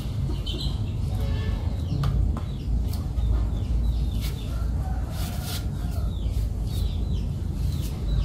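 Chickens clucking in the background over a steady low rumble.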